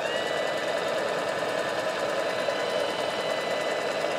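Graco Magnum ProX17 airless sprayer's electric motor and piston pump running steadily, with a high whine over the mechanical hum, as it primes by drawing water through its suction hose.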